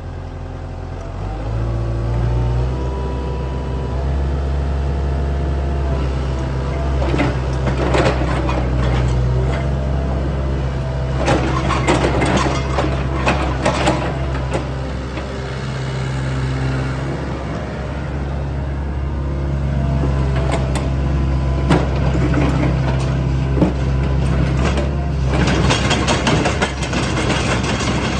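Hitachi ZX70 tracked excavator's diesel engine running, stepping up in speed within the first few seconds and then holding steady. Bursts of metallic clanking and squealing from the machine's working parts come at intervals, heaviest near the end.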